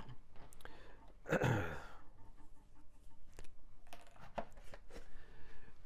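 Small knocks, clicks and rustles of things being handled on a workbench, with a breathy sigh about a second and a half in.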